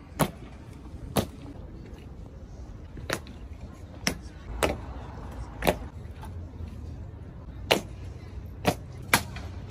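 Honour guards' changing-of-the-guard drill on cobblestones: about nine sharp, separate knocks of boot heels stamping and rifles being handled, spaced unevenly roughly a second apart, over a low hum of the watching crowd.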